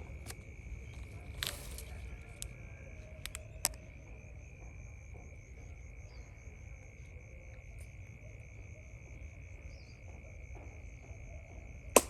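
Insects trilling outdoors: a steady high shrill with a second, rapidly pulsing chirp above it for most of the time, plus a few sharp clicks, the loudest near the end.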